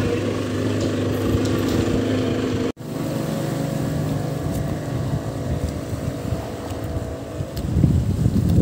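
Outboard engine of a small passenger speedboat running at a steady cruising speed. After a sudden cut about a third of the way in, the engine carries on fainter and fades out, and wind buffets the microphone near the end.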